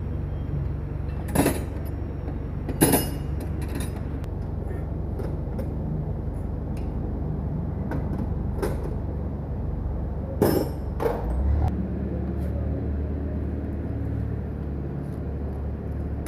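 A handful of sharp metallic clinks and knocks from tools and metal parts being handled, over a steady low workshop rumble that grows a little stronger about two-thirds of the way through.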